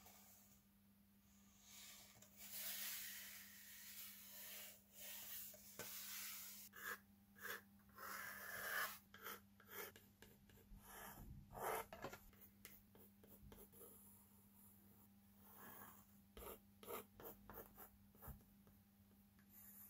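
Faint scratchy rubbing strokes of hand work on a skateboard deck, coming in short irregular runs, over a steady low hum.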